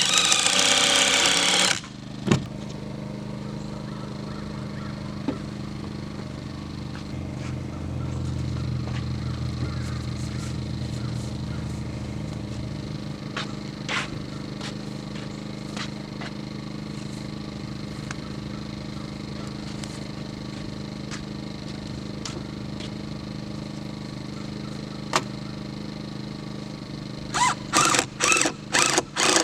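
An engine runs steadily throughout. A loud harsh burst fills the first two seconds, a few sharp knocks follow, and near the end comes a fast run of loud strikes, about two a second.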